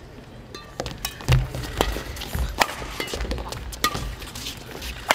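Badminton doubles rally: a run of sharp racket hits on the shuttlecock, irregular and roughly every half second to a second, with players' footsteps thudding and shoes squeaking briefly on the court floor.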